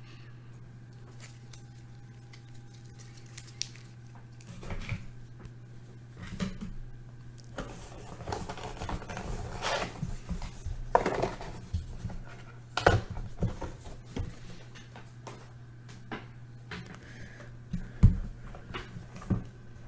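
Trading cards and their box being handled on a table: scattered rustling and light taps, with a sharper knock about 18 seconds in, over a steady low electrical hum.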